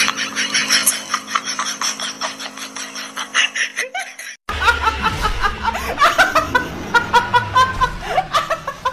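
People laughing hard in quick repeated pulses. The laughter cuts off abruptly about four and a half seconds in, and fresh laughter starts straight after.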